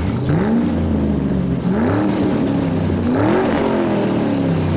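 A car engine revving up and down over and over, its pitch rising and falling about every second and a half.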